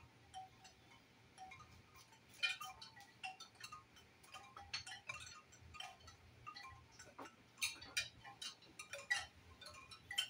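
Wind chimes swaying and knocking together: faint, scattered clinks and taps at an uneven pace, with a few louder strikes bunched together now and then.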